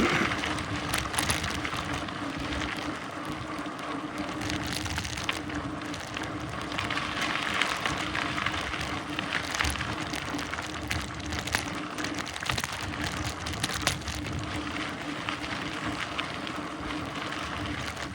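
Mountain bike riding along a dirt trail: steady rolling and wind noise, with many small clicks and rattles and a faint steady hum underneath.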